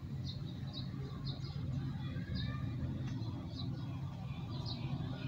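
A bird chirping, repeating short high notes every half second or so, over a steady low hum.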